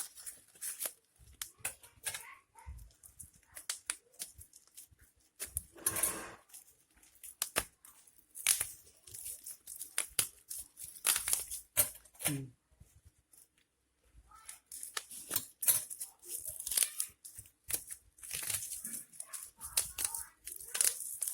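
Packaging of a new 5x5 speed cube being torn open and handled: irregular bursts of tearing and crinkling wrapper with rustling, in fits and starts with short pauses.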